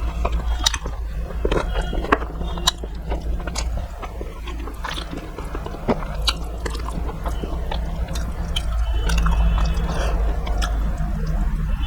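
A person chewing and biting food close to the microphone, with many small sharp clicks and wet mouth sounds, over a steady low hum.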